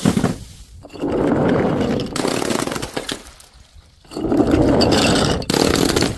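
A knock, then two long harsh crunching, scraping stretches of about a second and a half each, the sound of something being crushed.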